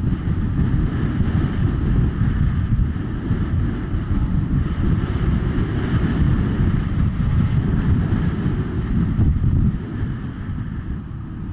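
Wind buffeting the microphone on a fast ride, a heavy, steady rumble that eases slightly near the end.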